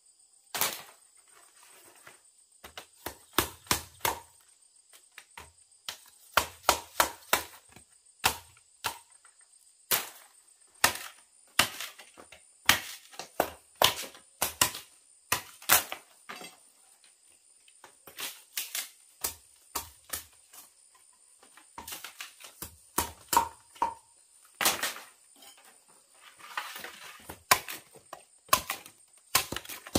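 Repeated sharp chopping blows on wood, struck in quick runs of a few blows with short pauses between.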